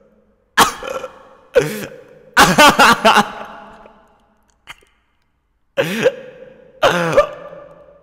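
A person coughing hard in separate fits, with several coughs in quick succession about a third of the way in. Each fit trails off in a long echo.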